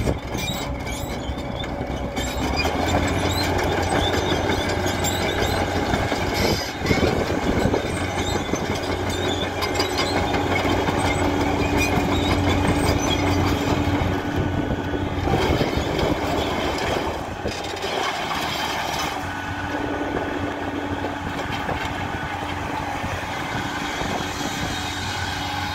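Takeuchi TB1140 crawler excavator running and working, its diesel engine sounding steadily while the machine swings and moves its boom, with metallic clanking and rattling from the steel tracks and attachments.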